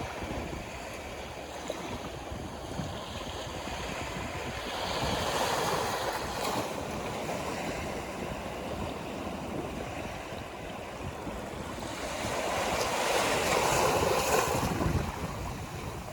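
Sea waves breaking and washing on the shore, swelling twice, about five seconds in and again near the end, with wind rumbling on the microphone underneath.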